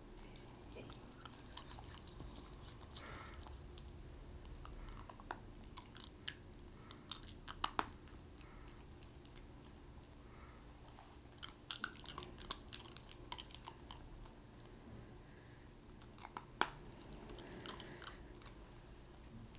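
A dachshund chewing a hard Halls lozenge, her teeth clicking and crunching on it in scattered bursts. The clicks come in clusters about a third of the way in and again past the middle, with one sharp crack in the last part.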